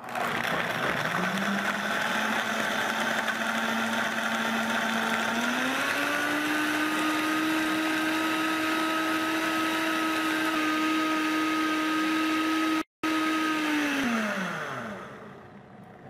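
Royal Prestige Power Blender's 1500-watt motor blending soaked almonds and water into almond milk. It starts at a lower speed, steps up to a higher-pitched speed about five seconds in, and winds down with a falling whine near the end.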